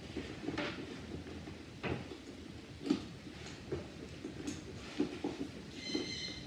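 A leather shoulder strap being clipped onto a leather handbag: scattered light clicks and knocks of the clasp hardware with soft rustling, and a short ringing tone near the end.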